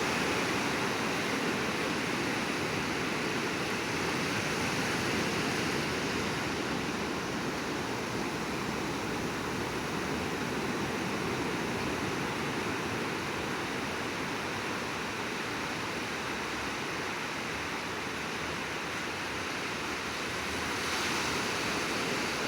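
Sea waves washing onto a shore in a steady rush, swelling a little near the start and again near the end.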